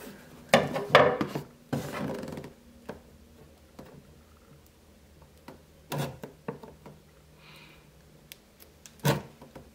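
Cardboard speaker box being wrestled open by hand: scraping and rubbing of the box flaps in the first two and a half seconds, then small clicks and two knocks against the wooden tabletop, about six and nine seconds in.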